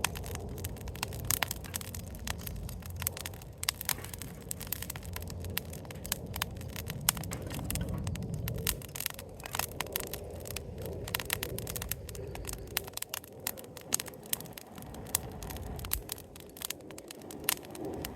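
Wood fire crackling, with irregular sharp pops and snaps over a low, uneven rumble.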